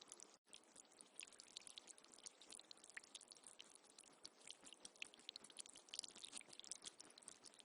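Faint trickling water with many tiny drips and splashes, cutting out for an instant just after the start.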